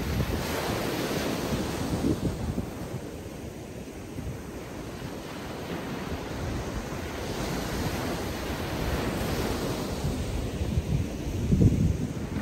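Atlantic Ocean surf washing onto the beach, swelling and ebbing as the waves come in, with wind buffeting the microphone in low rumbles that are strongest near the end.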